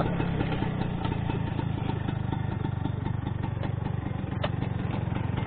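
Vintage Vespa scooter's two-stroke single-cylinder engine running steadily, its exhaust note a rapid, even run of firing pulses with no rise or fall in revs.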